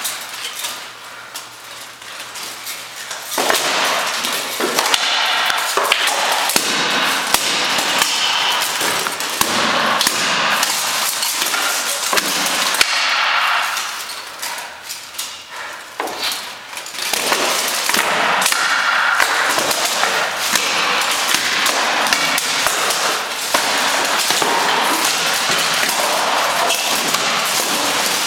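Steel armour clanking and weapons striking armour and shield in an armoured sparring bout: a rapid, continuous metallic clatter of hits that eases for a few seconds near the start and again about halfway through.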